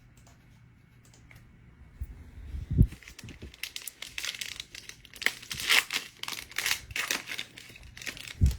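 Trading-card pack wrapper being torn open and crinkled, with a dull thump about three seconds in and another near the end.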